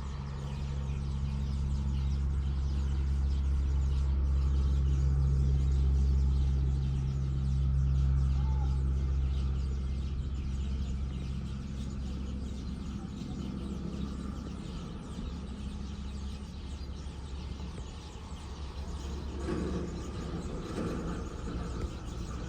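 Birds chirping and calling faintly throughout, over a louder low steady hum that swells in the first half and fades away after about twelve seconds.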